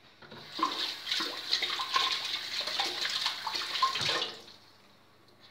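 Kitchen tap running, with water splashing over hands as they are rinsed; it is turned off after about four seconds.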